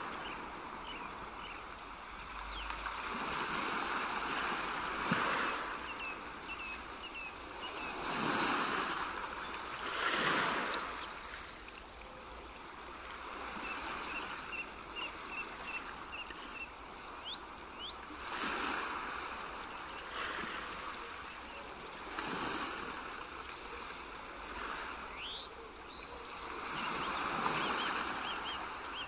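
Nature ambience: running water swelling and ebbing every few seconds, with small birds chirping and trilling over it.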